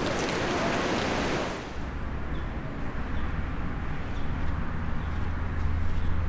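Water from an outdoor beach shower splashing onto wet paving. It is a dense hiss that cuts off about one and a half seconds in. After that comes a low, steady rumble.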